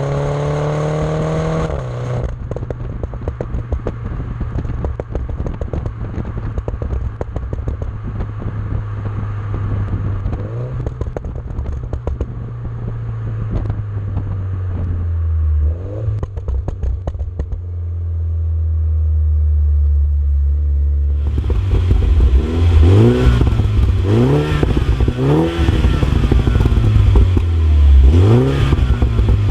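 Exhaust of a 2017 MINI John Cooper Works (F56) turbo four-cylinder through a Maxi-Tuner Hexagon valved rear silencer. The engine revs up briefly, then lifts off and runs at low revs with steady overrun crackling and popping from the exhaust. About two-thirds of the way in it gets louder and is blipped about six times in quick succession, crackling between the revs.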